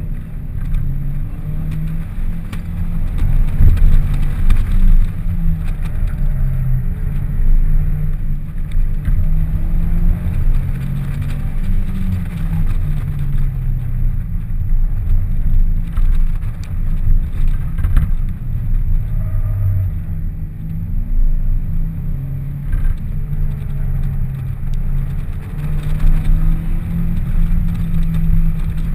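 2006 Pontiac Solstice's 2.4-litre four-cylinder engine revving hard and easing off again and again through an autocross run, its pitch rising and falling with each burst of throttle, heard from the open cockpit with the top down.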